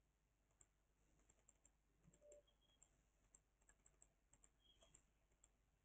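Faint, irregular clicks of computer keyboard keys and mouse buttons, scattered through otherwise near silence.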